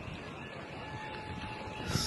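Outdoor city background noise: a steady low hum with a faint thin held tone in the middle, and no distinct events.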